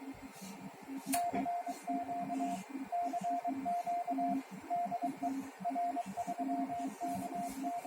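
CW (Morse code) sidetone from the transceiver as it is keyed into the linear amplifier: a steady mid-pitched beep sent in dots and dashes. A lower hum pulses along with the keying, and there are a few sharp clicks.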